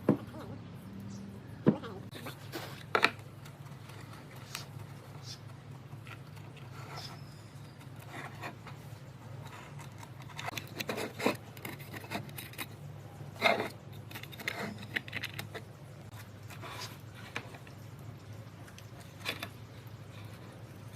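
Scattered light knocks and clicks, a few sharper ones standing out, over a steady low hum.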